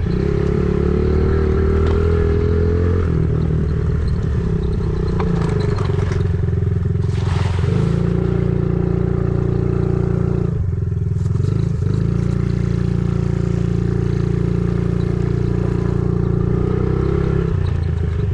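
An engine running steadily, with a brief noisy scrape or rush about 7 seconds in.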